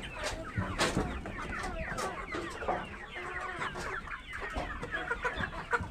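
A flock of chickens clucking and calling together, many overlapping short calls with scattered sharp clicks.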